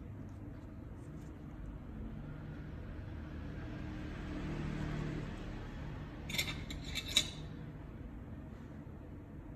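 A quick cluster of four or five sharp metallic clicks from pedicure tools being handled, a little past the middle, the last one the loudest. Under it a steady low hum, which swells and fades just before the clicks.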